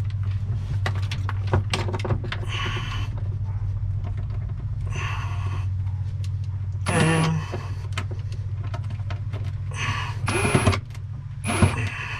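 Ryobi cordless impact driver run in several short bursts, driving a mounting screw into the boat's gelcoated panel. A steady low hum runs underneath.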